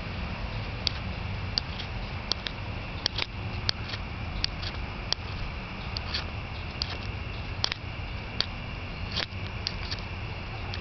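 Footsteps on a concrete path: light, sharp taps roughly every half second to second, some in quick pairs, over a steady low rumble and hiss.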